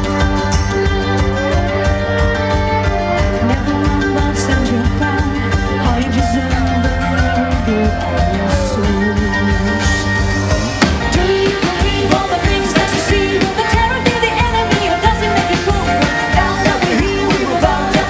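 Live band performing a song: singing over instruments with a steady beat, growing busier about two-thirds of the way through.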